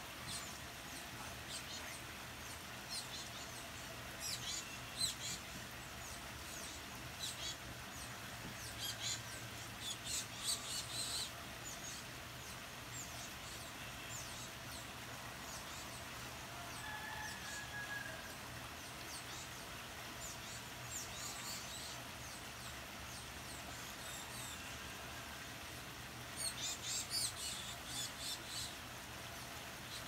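Wild birds chirping: short, high, rapid chirps in scattered bursts, busiest in the first third and again near the end, over a faint steady hum.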